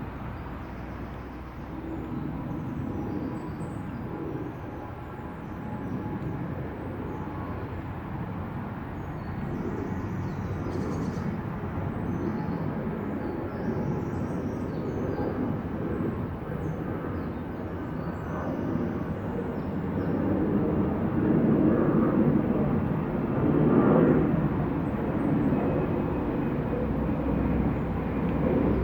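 Crumlin River water rushing steadily over its bed, growing louder in the last part. A few faint bird chirps sound high above it.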